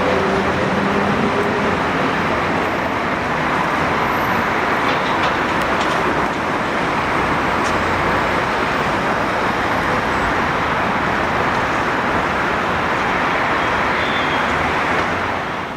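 A ČKD Tatra T3 tram running along street track: a steady, loud rolling noise of steel wheels on rails.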